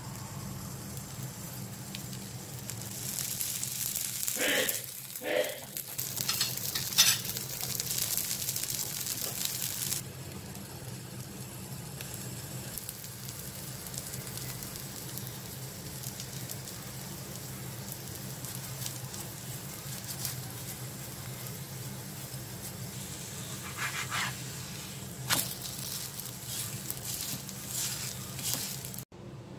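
Adai batter sizzling in oil on a hot tawa, the sizzle louder for several seconds after oil is spooned over it, with a low steady hum beneath. Near the end a metal spatula scrapes a few times on the griddle as it is slid under the pancake.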